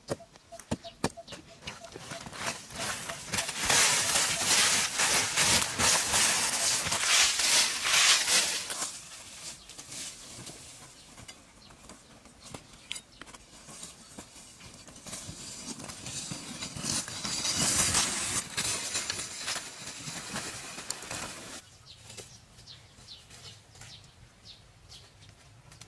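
Hand tools chopping and scraping into dry, leaf-strewn soil: rapid, dense scratchy strokes in two long stretches, about four to nine seconds in and again about fifteen to twenty-one seconds in, with scattered rustles and taps between them and near the end.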